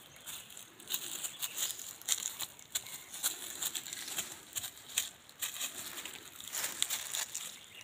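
Dry leaf litter and twigs crackling and rustling underfoot and against the body as people walk through dry undergrowth, in irregular small crunches.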